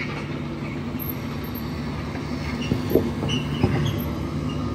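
Heavy equipment engine running steadily while the bigger auger bit is being fitted back on, with a few sharp metal clanks about three seconds in.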